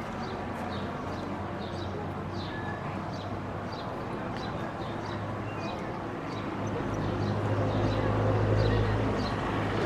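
City street ambience: a steady low engine hum from traffic that grows louder about two-thirds of the way in as a vehicle comes close, with small birds chirping in short, high notes about twice a second.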